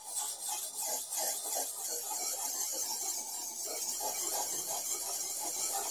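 Steel cleaver blade ground on a sharpening stone: a continuous gritty scraping that pulses at about three strokes a second.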